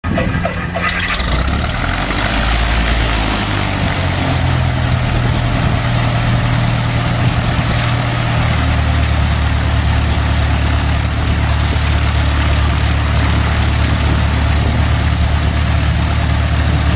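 A loud, steady engine drone with a rushing noise over it. Its low pitch steps up about four seconds in and drops back about halfway through.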